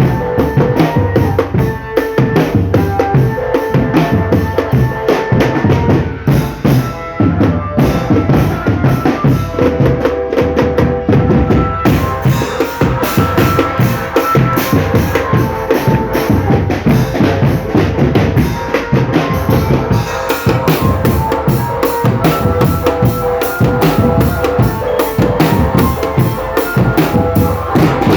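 Indonesian marching drumband playing: bass drums and snare drums beat a dense, steady rhythm with rimshots, and a melody line runs over them.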